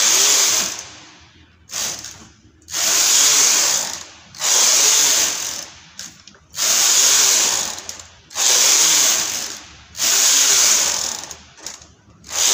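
Chunky-gauge knitting machine carriage pushed back and forth across the needle bed, knitting row after row. Each pass is a loud mechanical rattle lasting about a second, about six passes, one every two seconds.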